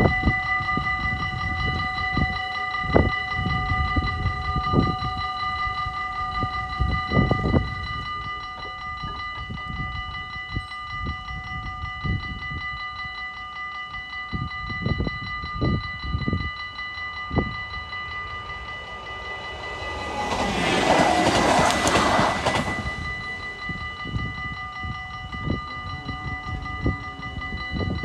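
Dutch level-crossing warning bells ringing steadily, with a train rushing past about twenty seconds in, loud for two to three seconds. Scattered low thumps in the first half.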